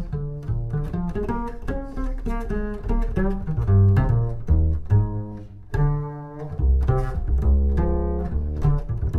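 Upright double bass played pizzicato: a steady run of quick plucked jazz notes.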